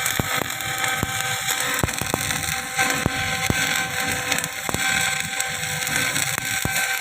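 Electric arc welding on a pile joint in the horizontal position: a steady crackling hiss from the arc, with irregular sharp pops throughout.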